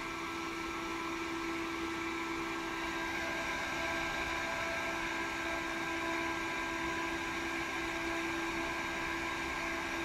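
A noisy cooling fan running steadily with a hum and whine, blowing air over a ZVS induction heater board to keep it from overheating.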